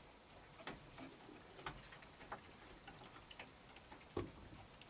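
Near silence broken by faint, irregular clicks and taps from raccoons feeding on a wooden deck, with one louder knock about four seconds in.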